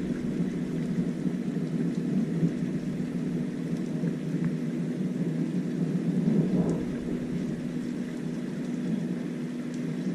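Heavy thunderstorm rain pouring down steadily, a constant low rushing noise that swells slightly past the middle.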